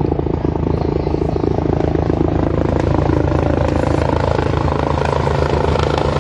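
Helicopter in flight with its four-blade main rotor beating in a steady, rapid chop over a low engine drone.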